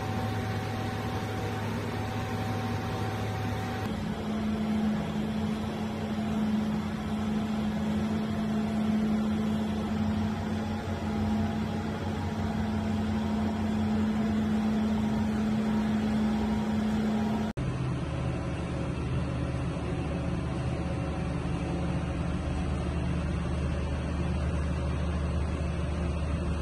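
Electric motors of a stainless-steel 1000-litre homogenizer mixer running with a steady hum and held tones. The balance of the hum changes suddenly twice, about four seconds in and again about two-thirds of the way through.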